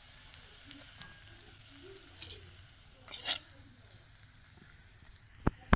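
A metal spoon scooping cooked cabbage out of a clay bowl into a clay pot of gravy: two short scraping, splashing rustles about two and three seconds in, then a sharp clack of the spoon on the bowl near the end, over a steady faint hiss.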